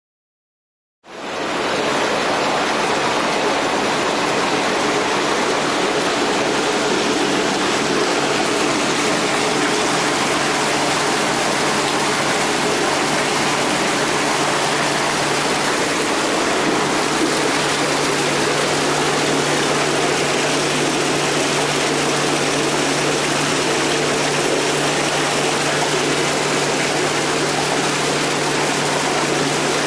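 Swimming-pool circulation water gushing from pipes into a concrete surge tank: a steady, loud rush of churning water that starts abruptly about a second in, with a steady low hum beneath it.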